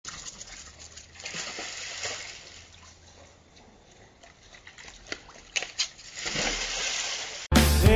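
Water splashing and sloshing in a hot tub as a small dog falls in, with a second, louder stretch of splashing near the end as a man climbs in after it.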